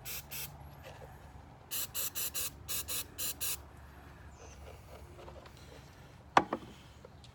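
Aerosol mass airflow sensor cleaner sprayed in a series of short, quick bursts of hiss, about ten in all, into the sensor housing to flush the hot-wire element. A single sharp knock follows about six seconds in.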